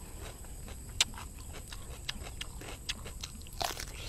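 Crunchy chewing of fresh cucumber: a run of small crisp crunches, with a sharp one about a second in and a louder bite near the end.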